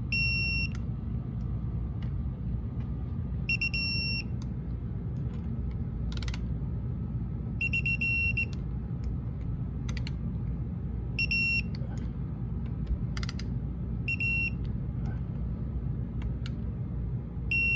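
Digital torque wrench beeping, six short high beeps about three and a half seconds apart, each signalling that a phaser bolt has reached the set 85 inch-pounds. Between most beeps there is a single sharp click as the wrench is moved to the next bolt.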